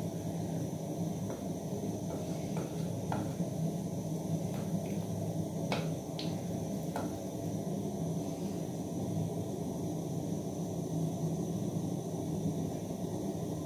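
Wooden spoon stirring a pea, potato and meat stew in an aluminium pot, knocking and scraping against the pot several times in the first seven seconds. Under it is a steady low rumble from the gas burner and the simmering stew.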